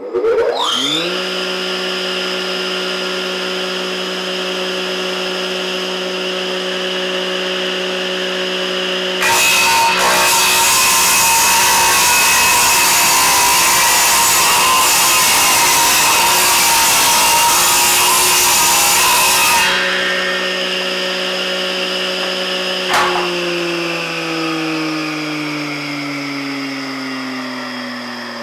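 An electric woodworking saw starts up and runs with a steady hum, then cuts through wood for about ten seconds, a loud hissing cut from about nine seconds in. It then runs free again, and after a knock the motor winds down, its hum falling in pitch.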